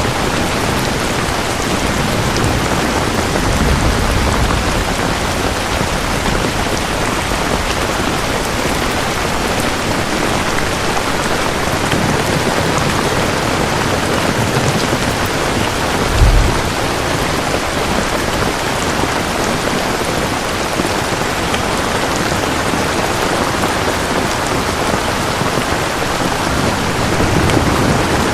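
Steady, heavy rain falling on surfaces, an even dense hiss, with low rumbles of thunder now and then and a short, loud low thump about halfway through.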